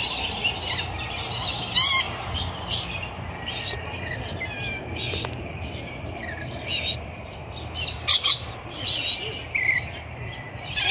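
Many birds chirping and squawking in an aviary, with a loud sharp squawk about two seconds in and two more close together about eight seconds in.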